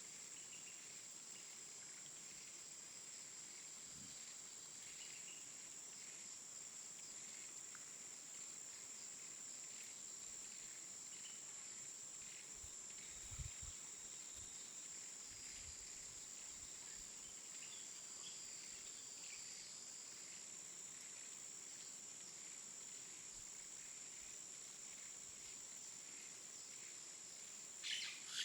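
Faint outdoor ambience: a steady high-pitched insect drone with scattered faint bird chirps. There are two soft low thumps about halfway through and a louder burst of chirping near the end.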